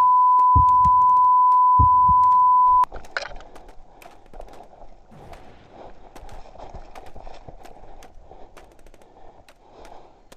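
A loud, steady electronic beep tone that cuts off suddenly about three seconds in, with a few low thumps under it. After it come much quieter sharp clicks and rustling.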